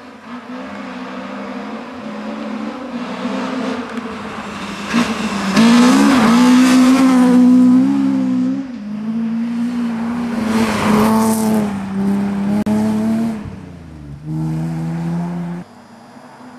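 Rally car racing past on a snowy gravel stage, its engine at high revs with the pitch rising and falling as it drives. It comes closer, is loudest about six to eight seconds in, then draws away and cuts off sharply near the end.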